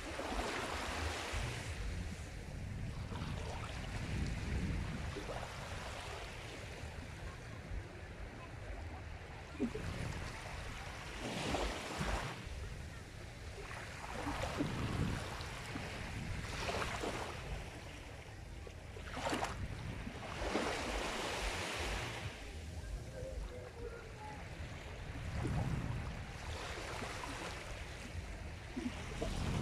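Sea waves breaking and washing in, the surf's hiss swelling and falling back irregularly every few seconds, with a steady low rumble of the sea beneath.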